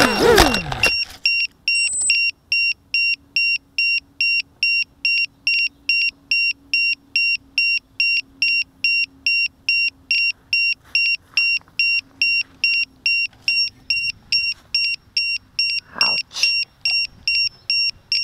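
A 250-size FPV quadcopter's motors whine down to a stop just after it hits the ground. Then its buzzer beeps steadily at a high pitch, about two to three beeps a second.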